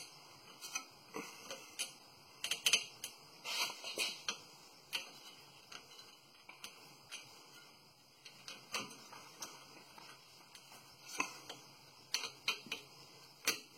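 Irregular small metallic clicks and taps of a brake caliper and its pad hardware being handled and seated back over new rear brake pads, with the louder knocks in two clusters, a few seconds in and near the end.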